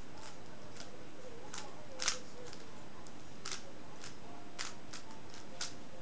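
A 3x3 Rubik's cube being turned layer by layer, its faces snapping into place with about ten sharp clicks at irregular spacing, the loudest a double click about two seconds in, over a steady hiss.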